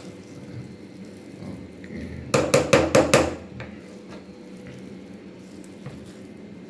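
Wooden spatula stirring and mashing cooked rice and lentils in a pressure cooker pot, with a quick run of knocks of the spatula against the metal pot about two and a half seconds in.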